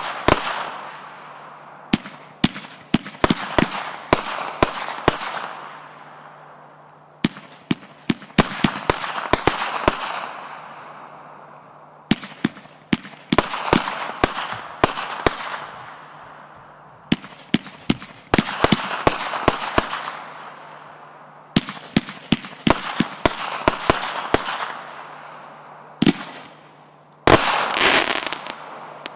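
Fantasy Fireworks 'Raw Power' aerial firework firing volleys of sharp bangs, several in quick succession, about every four to five seconds. Each volley trails off in a long fading tail, and the loudest burst comes near the end.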